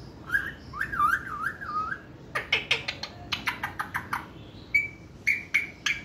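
Pet parrot calling: a whistle that wavers up and down for about two seconds, then a quick run of sharp chirps, and a few short high whistled notes near the end.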